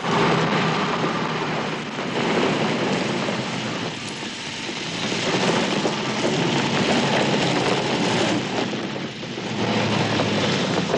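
Vintage open-top staff car's engine running as it drives, its tyres crunching over a gravel road.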